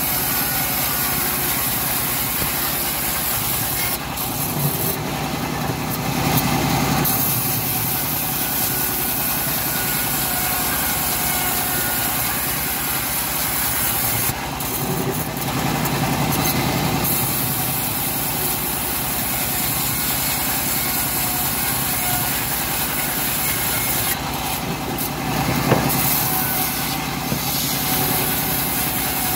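A homemade bandsaw mill running steadily as it rips an old teak plank lengthwise, its sound shifting three times as the wood works through the blade.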